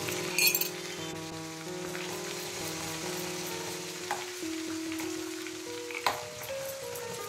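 Hot oil sizzling and bubbling in a stainless steel kadai while it is stirred, with a metal spoon clinking sharply against the pan about half a second in, then again around four and six seconds. A background music melody plays over it.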